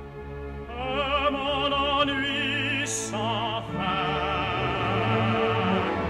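Operatic tenor singing a sustained line with wide vibrato over a full orchestra, coming in about a second in. A brief hiss about three seconds in.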